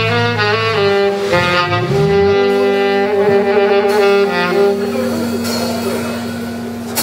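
Live band playing, with a saxophone over bass and drums. The saxophone line moves through short notes, then settles into a long held final note that fades away near the end as the tune closes.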